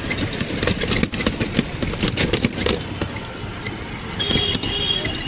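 Rickshaw ride on a street: the rickshaw rattles and clatters over the road with steady traffic noise, and a short high tone sounds about four seconds in.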